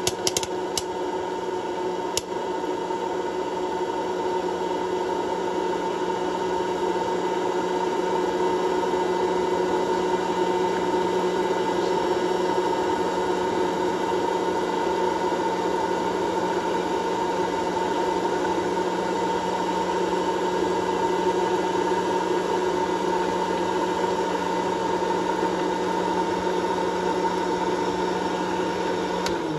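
Hot-air popcorn popper running: a steady whirring blower with a hum, with a few last kernels popping in the first couple of seconds. At the very end the motor starts to wind down, its pitch falling.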